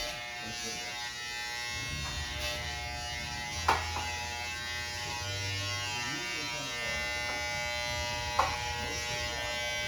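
A steady electric buzzing hum from a small motor, with a sharp click about a third of the way in and another near the end.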